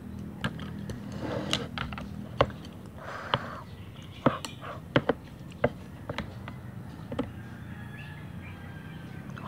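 Chopsticks clicking and scraping against a plastic bowl as noodles are stirred and lifted, in irregular sharp taps that stop after about seven seconds, over a steady low hum.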